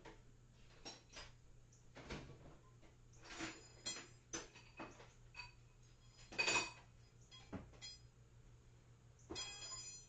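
Metal hand tools clinking and clanking: a series of separate knocks and clicks, a louder ringing clank about six and a half seconds in, and a short ringing metallic clatter near the end.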